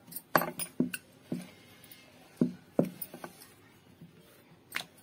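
Rolling pin knocking and rolling on a stone rolling board as dough is rolled out thin: a string of sharp, irregular knocks with a short ring after each.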